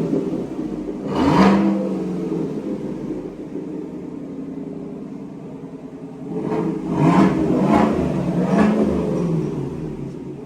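2021 Chevy Tahoe engine breathing through a freshly fitted Corsa cat-back exhaust, blipped over idle: one rev about a second in, then three quick revs between about six and nine seconds, settling back to idle near the end.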